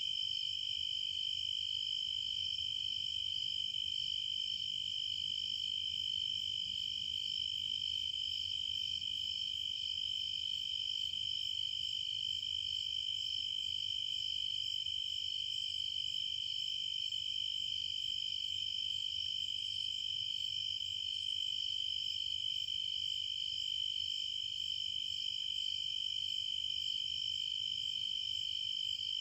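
Crickets chirping in a steady, unbroken high-pitched chorus, with a fainter regular ticking higher above it from about six seconds in.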